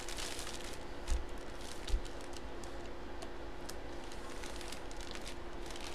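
Clear plastic bag crinkling and rustling as a jersey inside it is handled, with scattered light ticks and two soft knocks about one and two seconds in, over a faint steady hum.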